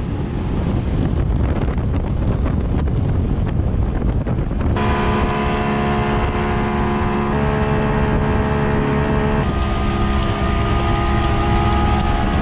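Boat underway at speed: wind buffeting the microphone and water rushing for the first five seconds or so, then the steady drone of its Evinrude Ocean Pro 150 two-stroke outboard over the rush, its pitch shifting in a couple of steps.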